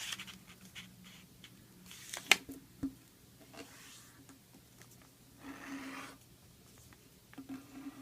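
Sheet of paper being handled and creased while folding a paper airplane: faint rustling and scattered small clicks, with a sharp crackle about two seconds in and a short rustle past the midpoint.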